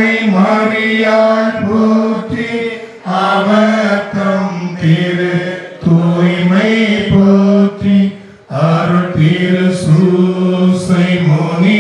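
A voice chanting a Tamil devotional prayer in long phrases on held, nearly level notes, with short breaks between the phrases.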